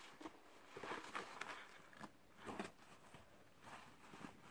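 Faint rustling and scuffing of a fabric school backpack being handled as hands open its large side pocket, a few soft sounds over near silence.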